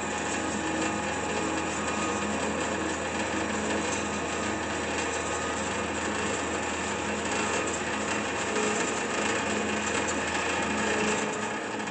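Kalamazoo KTS1018W horizontal band saw running steadily, its motor humming and the bi-metal blade whirring as the head feeds down. Near the end the low motor hum cuts out as the saw shuts off.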